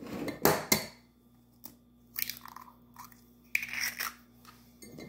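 Raw eggs being cracked by hand into a stainless steel mixing bowl: two sharp taps of a shell about half a second in, then the crunch of eggshell being broken apart a few more times.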